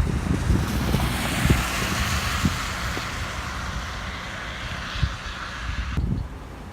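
Wind buffeting the microphone in gusty low rumbles, over a steady hiss of noise that cuts off abruptly near the end.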